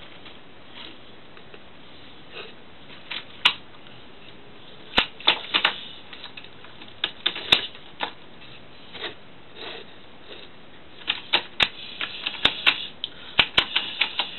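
Toy train pushed by hand along a wooden windowsill, its wheels and body clicking and rattling against the wood in irregular clusters of sharp clicks, busiest in the second half.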